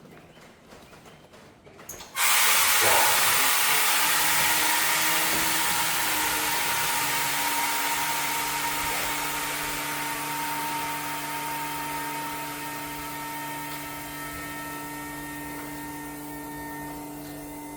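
Leveling-jack motor of a motorhome switching on about two seconds in and running steadily with a whine over a hiss as the jacks are lowered, slowly growing quieter.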